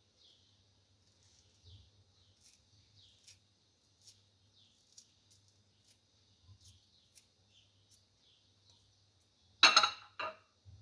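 Knife paring the peel and pith off a lemon: faint, small scrapes and clicks repeating about twice a second, then two louder knocks, a knife or bowl on the worktop, near the end.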